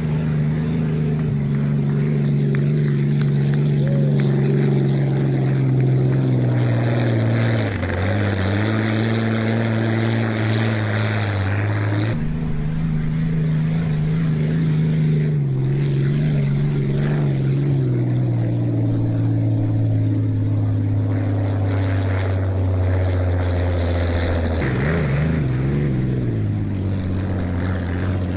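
Engine of the restored 1979 Squire Shop unlimited hydroplane running loud and steady. Its pitch sags and climbs back twice as the throttle changes, and the sound changes abruptly about twelve seconds in.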